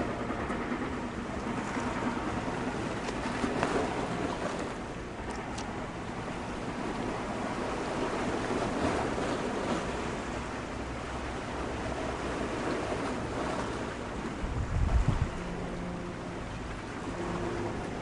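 Steady ambience of wind and water, with a brief low thump about fifteen seconds in.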